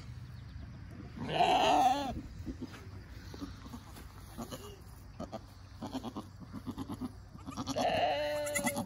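Nigerian Dwarf goat bleating twice: a wavering call about a second and a half in and a second, steadier call near the end.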